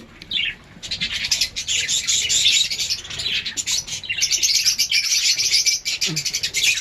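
A flock of small aviary parrots, lovebirds among them, chattering and chirping over one another in a dense, high-pitched din, with a short lull about half a second in.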